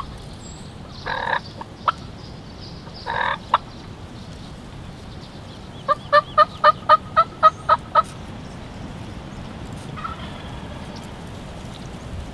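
Wild turkey gobbler gobbling twice, about one second and three seconds in, each gobble followed by a short sharp note. Around six seconds in comes a quick, evenly spaced run of about nine hen yelps, louder than the gobbles.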